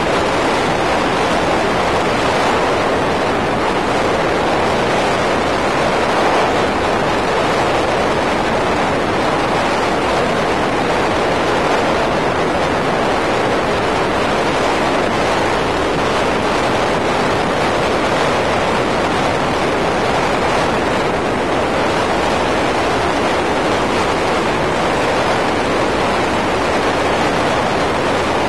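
Steady rushing wind and road noise from a car driving at highway speed, with wind buffeting the microphone.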